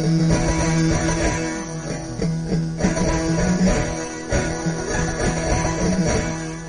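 Music: a plucked string instrument plays an ornamented melody over long held low notes.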